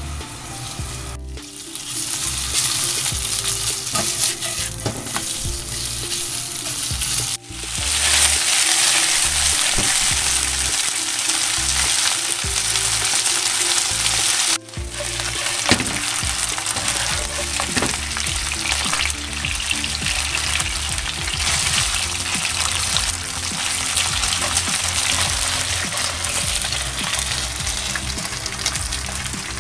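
Sliced pork belly sizzling as it fries in its own fat in a pan. The sizzle cuts out briefly three times and is louder after the second break, about seven seconds in.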